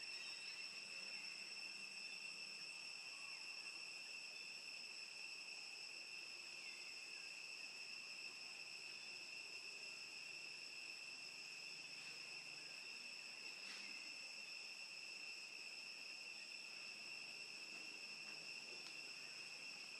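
Steady, high shrill chorus of insects holding a few fixed pitches without a break.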